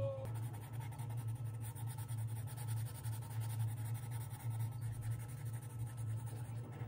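Coloured pencil shading rapidly back and forth on a colouring-book page: a close, continuous scratchy rubbing of pencil lead on paper, over a steady low hum.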